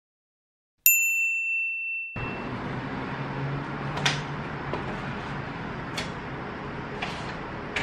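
A single bright ding, a bell-like chime that rings out and fades over about a second. It is followed by steady kitchen room noise with a few light clicks and clinks as things are handled at the sink.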